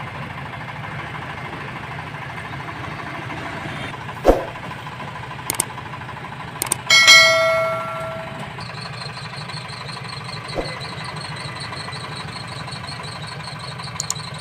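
Mahindra tractor's diesel engine running steadily. Over it, a thump about four seconds in, then a few clicks and a ringing bell chime, the sound effect of a subscribe-button animation.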